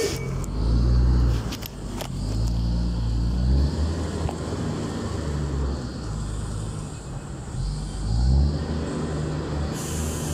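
Heavy diesel engine of an XCMG reach stacker running, its pitch rising and falling as it revs, loudest about a second in and again near eight seconds. A couple of sharp knocks sound near two seconds.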